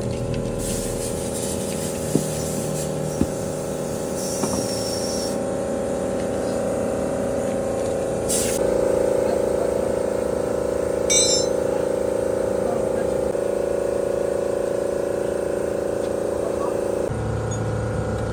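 Background music with steady held notes that change twice, over which a few short metallic clinks sound about two to four seconds in.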